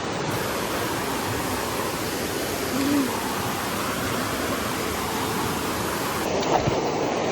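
Steady rushing noise, like running water or wind on the microphone, with one short low hoot-like tone about three seconds in.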